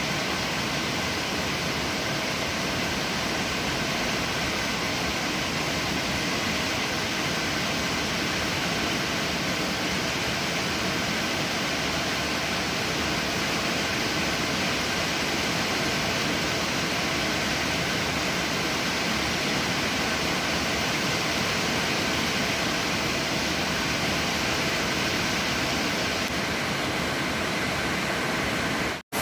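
Heavy rain falling steadily, an even dense hiss. It cuts out for an instant near the end.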